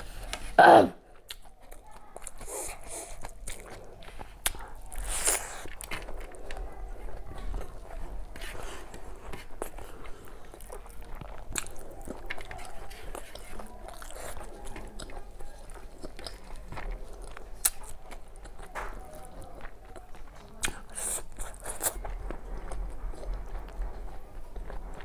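Close-up eating sounds: chewing and crunching with wet mouth clicks, and fingers mixing rice and fish curry on a banana leaf. About a second in, one short loud sound drops sharply in pitch.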